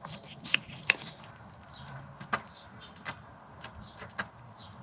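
A handful of scattered light metallic clicks and taps as the loosened 8mm wheel speed sensor bolt is unscrewed by hand from the steering knuckle.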